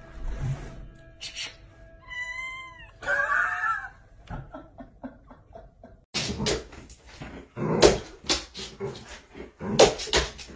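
A cat meowing twice, a long bending meow followed by a shorter, lower one, then a quick run of sharp knocks and thumps.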